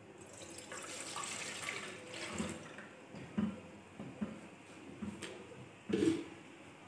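Milk being poured from a plastic jug into a stainless steel pot, a splashing pour over the first few seconds, followed by a few light knocks, the loudest near the end.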